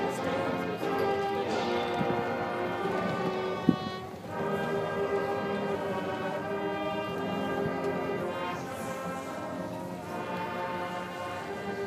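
High school marching band playing a school song, its brass holding full chords, with a sharp hit and a brief drop in level about four seconds in.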